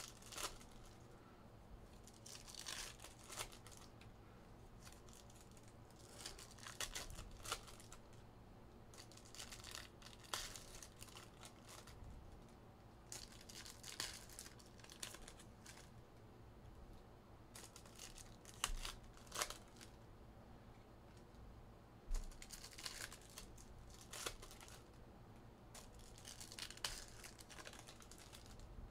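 Foil trading-card packs being torn open and crinkled by hand, in short bursts every few seconds.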